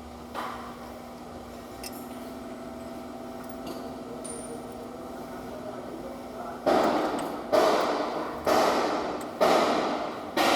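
A steady low hum, then five hammer blows on metal about a second apart, each ringing away before the next.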